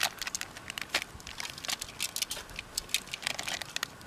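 Thin plastic bag crinkling as a hand takes flour out of it, with scattered light clicks and crackles.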